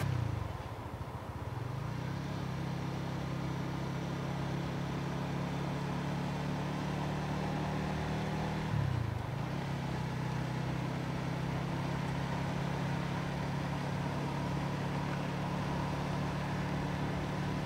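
Vehicle engine running at a steady cruising speed, its note dipping and climbing back briefly near the start and again about nine seconds in, as the throttle eases off and opens again.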